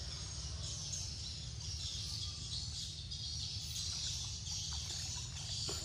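Steady outdoor ambience: a high insect drone over a low rumble, with a couple of faint short bird calls near the end.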